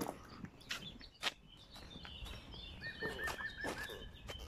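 Footsteps and scattered clicks on a paved path. About three seconds in, a small bird sings a quick run of about six repeated notes.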